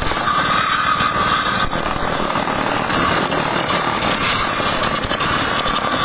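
Homemade table saw driven by a two-wheel walking tractor's single-cylinder diesel engine, its circular blade ripping lengthwise through a wooden plank over the engine's steady running. A high steady tone weakens while the blade is deep in the wood, from about two seconds in, and comes back near the end.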